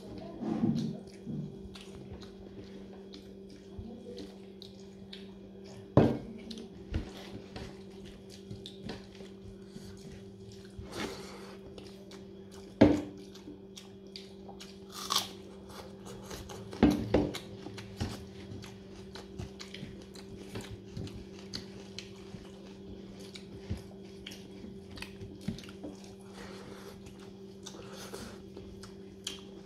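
Close-up mouth sounds of a person eating rice and raw onion by hand: chewing and biting, with a handful of sharp crunchy clicks standing out. A steady low hum lies underneath.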